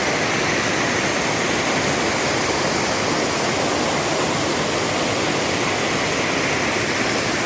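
Mountain stream cascading over rocks: a loud, steady rush of falling water.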